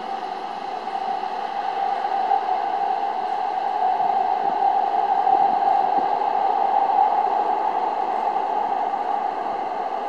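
Gyeongchun Line rapid electric train running toward the station: a steady rushing noise with a droning hum. It swells to its loudest about halfway through, then eases slightly.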